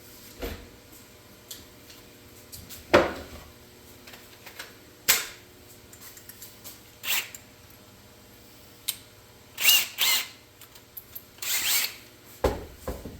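Center punch being struck on marked hole spots in a dash switch panel: about ten sharp, separate clicks and knocks at uneven spacing, the loudest about three seconds in.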